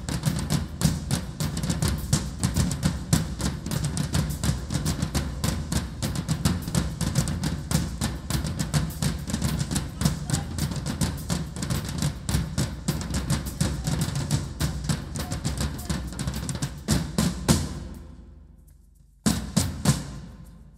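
A percussion ensemble drumming a fast, dense groove on many drums. It fades away near the end, and a short burst of drumming follows.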